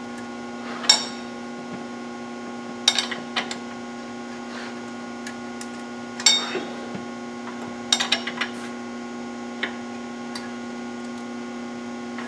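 Steady electrical hum with a scattering of sharp metallic clinks and clanks from hand tools and parts being worked at a truck's front wheel hub and steering knuckle.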